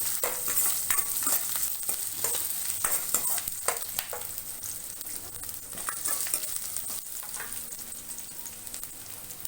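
Garlic cloves and ginger sizzling in hot oil in a kadai with whole spices. Sharp clicks of stirring against the pan come through the first few seconds, then thin out while the sizzle carries on a little softer.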